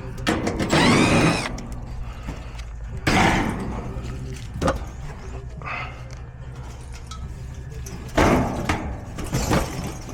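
Sheet-metal access door of an air-conditioner condenser being pried and worked loose, metal scraping and clanking with a short squeal near the start, more knocks about three seconds in and a longer stretch of scraping near the end. A steady low hum runs underneath.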